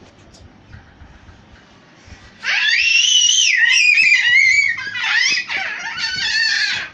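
A toddler screaming: after about two and a half seconds of quiet, a few long, shrill, very high-pitched shrieks with wavering pitch.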